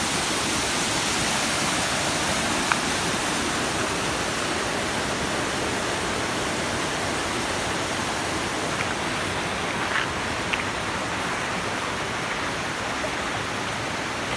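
Waterfall rushing steadily, a continuous splashing roar of falling water. A few brief sharp clicks sound over it, the clearest about three seconds in and two more about ten seconds in.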